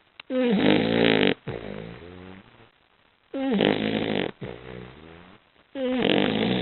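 A basset hound snoring loudly in a steady rhythm: three loud snores about two and a half seconds apart, each dipping in pitch as it starts and followed by a quieter, lower breath.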